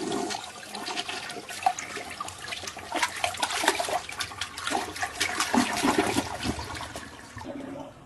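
Rushing, gurgling water, irregular and churning.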